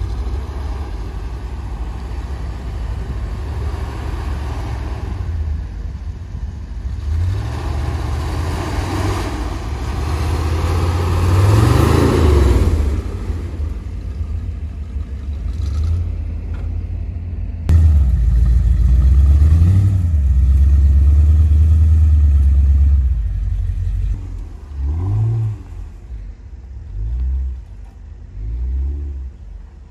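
Off-road truck engines revving under load in snow. A Toyota FJ40 Land Cruiser's engine revs up and down as it climbs, at its loudest about twelve seconds in. After a sudden change about eighteen seconds in, an engine drones steadily and then gives several short revs near the end.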